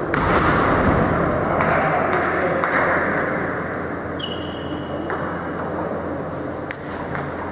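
Table tennis balls clicking off tables and bats, with several short high ringing pings scattered through, over the steady background noise of a large sports hall.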